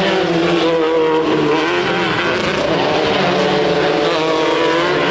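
Off-road race vehicle engine running hard at high revs, its pitch rising and falling with the throttle.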